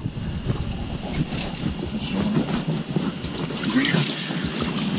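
Rustling and irregular clicking handling noise as an angler plays a hooked fish up through an ice hole, with low murmured voices.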